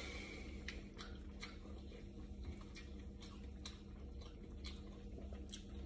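Someone eating stew from a bowl with a wooden spoon: faint, irregular clicks and taps, about one or two a second.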